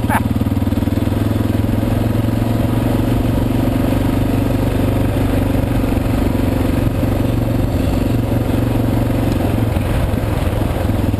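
Suzuki DR650's single-cylinder four-stroke engine running at a steady pace while the motorcycle rides along a dirt road, its pitch holding even throughout.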